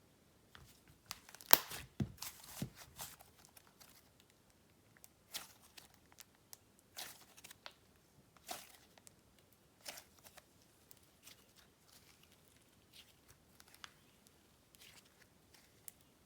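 Slime being squeezed and stretched by hand, giving scattered sticky pops and crackles, several in quick succession in the first few seconds and then single ones every second or so.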